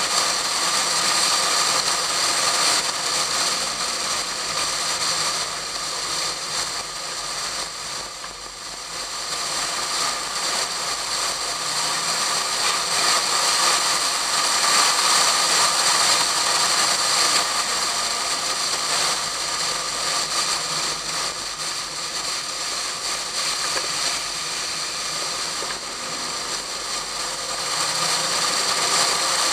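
Wind rushing over a hood-mounted camera in a waterproof case on a car at track speed, a steady loud hiss that drowns out the car's engine. It grows quieter for a moment about eight seconds in.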